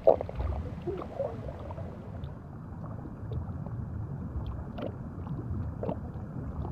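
Underwater ambience: a low, muffled rush of water with a few faint soft pops.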